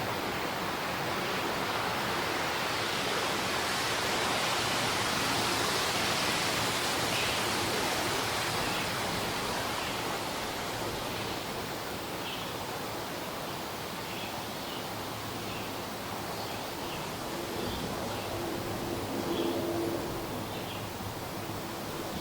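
Morning forest ambience: a rushing noise swells over the first several seconds and then eases off. Short bird chirps come in during the second half.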